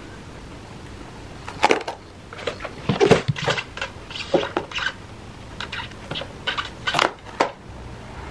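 Protective plastic film being peeled and crinkled off the glossy body of a new air fryer: irregular crackling rustles starting about one and a half seconds in, scattered through the middle and dying away near the end.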